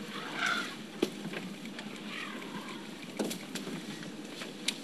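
African elephant giving a short high squeal-like trumpet early on, then a fainter falling call about two seconds in. Over a steady low rumble, with a few sharp cracks.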